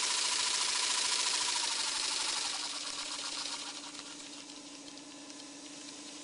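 Small model geared steam engine running on compressed air: a loud hiss of air from the engine, with faint, even ticking from the mechanism. About three seconds in, the hiss drops away, leaving a steady hum and the ticking.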